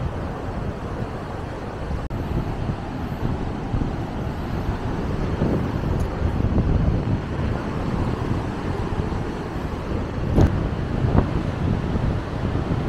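Wind on the microphone, a loud, gusty low rumble of outdoor noise with no clear tone. Two short knocks come about ten and eleven seconds in.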